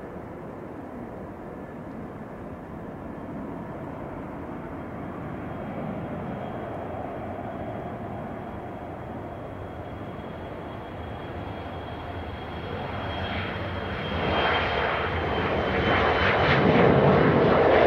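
Boeing 767-300ER jet engines steady with a faint high whine through the landing. About 14 seconds in, the sound swells into a rising rush of reverse thrust that keeps getting louder as the airliner rolls out.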